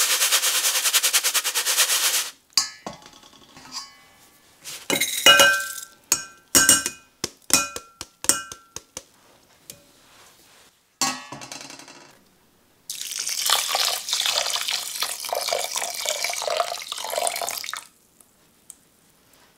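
Wet basmati rice shaken in a stainless-steel mesh sieve over a steel bowl, a fast rattling. Then a string of sharp clinks with metallic ringing as the sieve knocks the bowl and the rice is tipped into a ceramic pot. From about 13 s, water is poured from a glass jug onto the rice in the pot, stopping sharply near the end.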